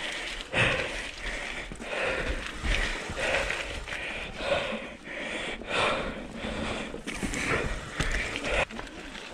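Mountain bike rolling down rough singletrack, with tyre and frame rattle and wind rumble on the helmet microphone. Over it the rider breathes hard in rhythmic gasps, one roughly every second.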